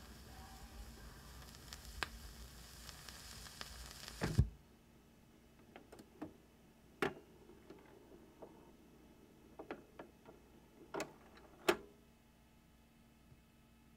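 Turntable stylus riding the end of a 45 rpm vinyl single after the song, with steady surface hiss and light crackle, cut off by a thump about four seconds in as the tonearm lifts. Then a few separate clicks and knocks as the arm moves back off the record.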